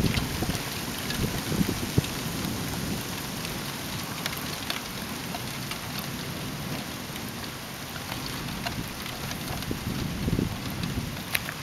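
Heavy rain falling in a steady hiss, with scattered ticks of single drops. A low rumble swells briefly about ten seconds in.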